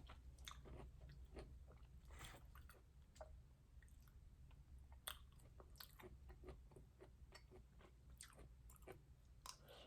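Faint close-up chewing of food: soft, irregular mouth clicks and smacks.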